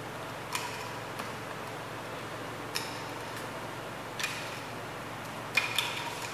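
A handful of short, sharp clicks at irregular intervals over a steady background hiss, the loudest pair coming near the end.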